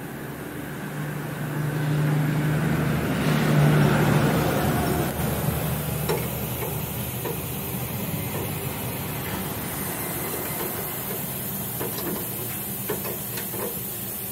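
Steady mechanical hum and hiss that swells over the first few seconds and then settles, with faint metallic clicks from a wrench working the tie-rod clamp on a truck's front axle.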